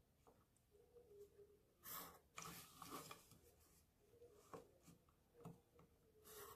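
Faint scratching of a pencil drawn along a ruler's edge on paper, in a few short strokes, the longest about two seconds in.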